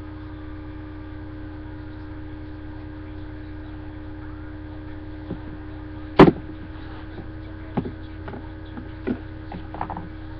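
Steady electrical hum on the webcam recording. About six seconds in there is one sharp knock, followed by a few fainter clicks and taps, typical of plastic toy figures being handled and set down on a surface.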